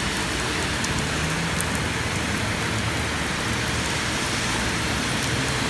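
Steady semi-heavy rain falling, an even hiss of water on the ground.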